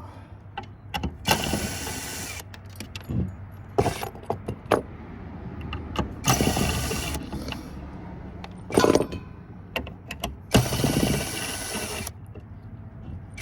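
A power driver spinning in three short runs, about a second each, loosening fasteners on a circuit board, with sharp clicks and metal clinks of parts and tools between the runs.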